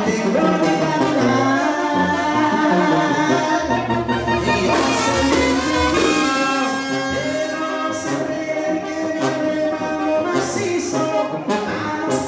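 A live Mexican banda playing, with clarinets, sousaphone, trumpet, tambora bass drum and snare, and a singer on a microphone.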